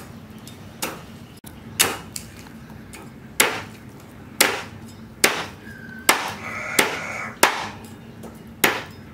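Heavy cleaver chopping a raw fish into pieces on a round wooden chopping block: about ten hard chops, roughly one a second.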